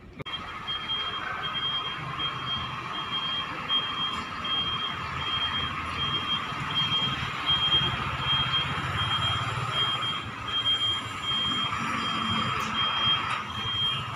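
Truck reversing alarm sounding short high beeps, evenly spaced a little under a second apart, over the diesel engine running as the box truck backs toward the loading dock.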